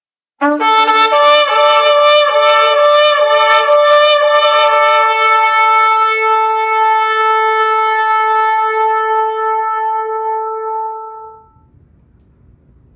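A shofar blown in one long blast. It steps up from a lower note into a high held tone that wavers in quick pulses for the first few seconds, then holds steady and fades out about eleven seconds in. Faint room tone follows.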